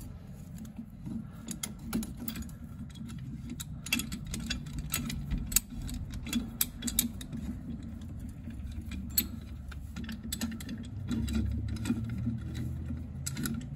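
Irregular metal clicks and clinks as a C-clamp is fitted against a rear disc brake caliper, over a low rumble.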